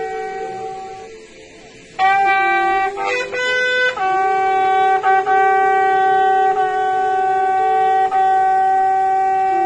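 Military bugle call played as a funeral salute. It dips briefly about a second in, plays a few shorter notes about two seconds in, then holds one long, steady note from about four seconds.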